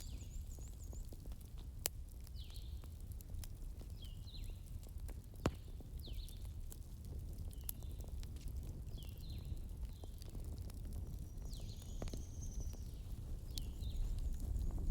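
Fire crackling: a steady low rumble with sharp pops every few seconds. Short high descending chirps come every second or two above it.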